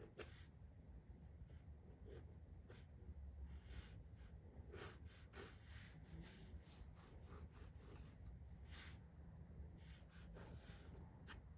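Faint scratching of a pencil on drawing paper: many short, light strokes, some in quick runs, made while marking out a figure drawing.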